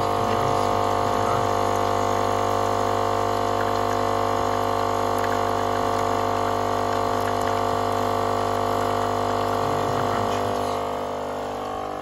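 Melitta CI Touch coffee machine's vibratory water pump running with a steady buzzing hum, water splashing down inside the machine into the drip tray, easing off near the end. The water is leaking inside the machine, which the repairer suspects comes from the flow meter or a valve.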